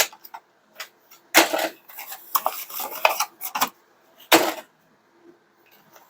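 Hard plastic toy playset pieces being handled: a few sharp clicks and knocks with rustling as the second miniature chair is freed from its packaging.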